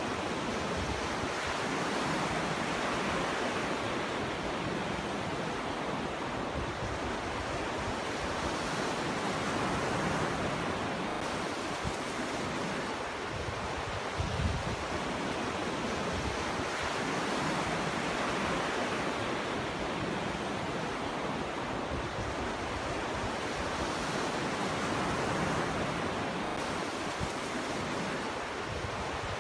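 Ocean surf breaking on a beach: a continuous rush of water that swells and eases about every seven or eight seconds, with a low thump about halfway through.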